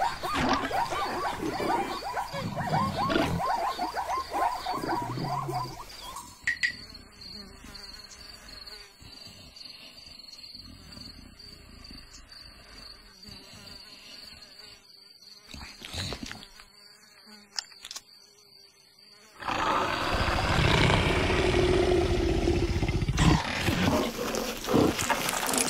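Animated-cartoon soundtrack of savanna animals. Busy animal sound effects open it, then a long quiet stretch of savanna ambience with a steady, high insect buzz. About two-thirds of the way through, a loud, noisy stretch of sound starts suddenly.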